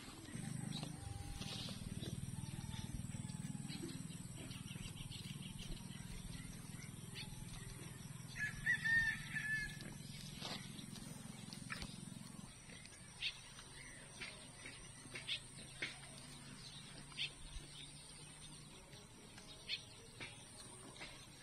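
A rooster crowing once, about nine seconds in, over a low steady hum that fades out after about twelve seconds; short high chirps follow.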